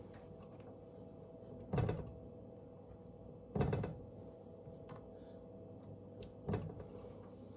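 Three dull thumps about two seconds apart as cookie dough is pressed out by hand on a metal baking sheet, over a faint steady hum.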